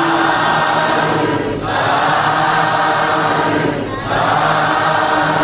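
A group of voices chanting a Buddhist chant together in unison, in three long phrases with short breaks about one and a half and four seconds in.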